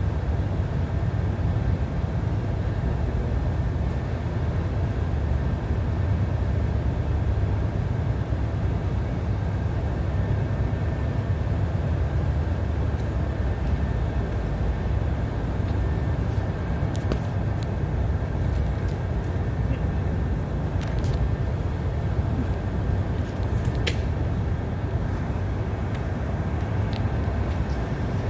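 Tugboat engine idling: a steady low rumble that holds even throughout, with a few sharp clicks in the second half.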